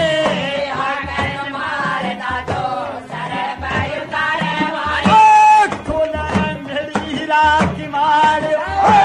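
Men singing a folk devotional bhajan in loud, spirited voices. Hand-held drums beaten with sticks and small metal hand cymbals keep a steady pulsing beat under the singing.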